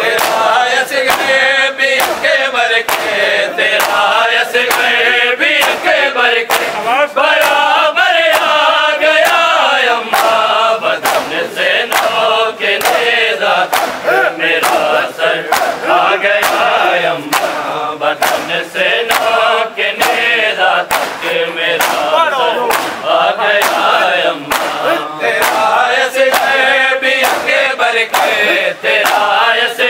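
Men chanting an Urdu noha in unison, over a steady beat of hands slapping bare chests in matam.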